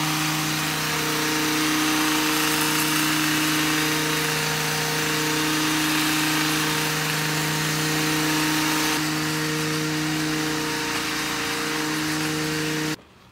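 Stihl MM 55 C tiller's small engine running at high, steady speed while its tines churn the soil; the sound cuts off suddenly near the end.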